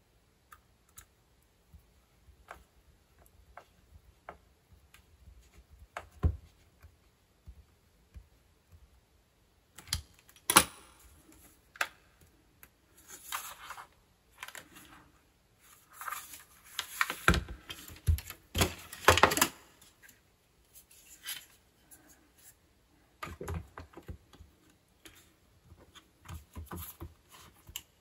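Small clicks, taps and knocks of screws, a screwdriver and a plastic tape recorder case being handled during reassembly: sparse and faint at first, in louder clusters through the second half.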